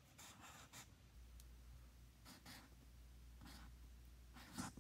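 Felt-tip Sharpie permanent marker scratching across paper as a word is written letter by letter: a few short, faint strokes with pauses between them, and a slightly louder one near the end.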